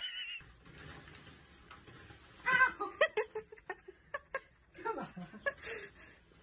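A person laughing in runs of short bursts, loudest about two and a half seconds in, with a second, shorter run of laughter about five seconds in.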